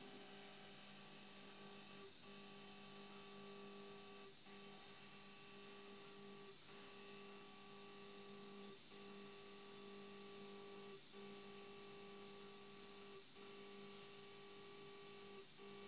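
NEMA 17 stepper motor running at a steady step rate, giving a faint, even hum. Seven times, about every two seconds, it stops briefly with a tick; each stop marks the end of a cycle as the piece counter advances.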